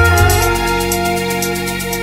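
Chill electronic background music: sustained chords with a deep bass note that fades over the first second, over a fast, steady ticking beat.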